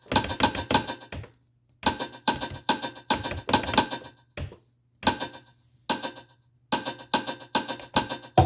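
Roland CR-1000 drum machine playing a clicky, woodblock-like percussion pattern of about four hits a second, stopping and starting in short runs with brief silences between them.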